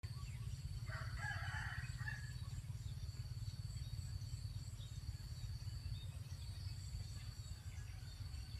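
A rooster crows once, about a second in, for a little over a second, over a steady low rumble.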